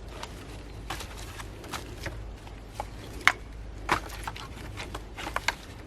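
Scattered light wooden knocks and crackles from firewood being handled and stepped on. The two sharpest knocks come about three and four seconds in.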